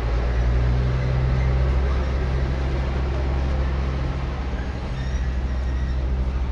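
A steady low machine hum, even throughout, with a metal spoon faintly scraping in a plastic cup of coconut coir.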